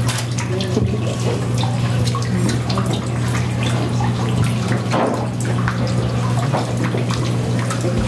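Water splashing and trickling steadily down a stone-wall fountain, with scattered small drips, over a steady low hum.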